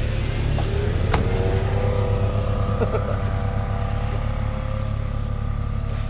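Off-road 4x4's engine running steadily at low speed while driving through deep snow, a low rumble with a slowly wavering whine on top. There is one sharp click about a second in.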